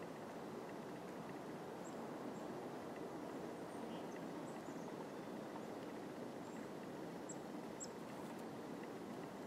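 Steady outdoor background hiss, with a handful of faint, very high, thin bird call notes scattered through it.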